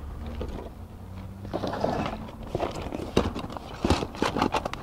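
Cardboard box and plastic packaging being handled and rummaged through: rustling with irregular light knocks and clicks, starting about a second and a half in, over a faint steady low hum.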